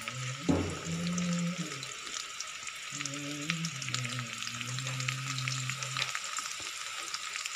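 Whole common carp frying in hot oil in a pan: a steady sizzle thick with small crackles and spits, with a single knock about half a second in.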